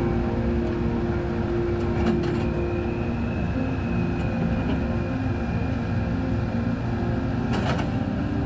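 A large engine running steadily, the low rumble of heavy road-construction machinery or a passing heavy vehicle, with a couple of short knocks, one about two seconds in and one near the end.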